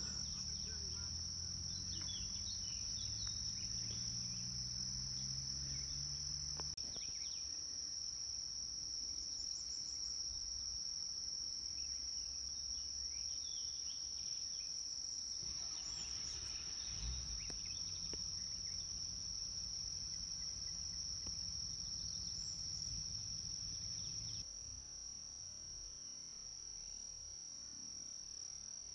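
Insects singing in one continuous, steady high-pitched drone, with a faint low hum underneath at times.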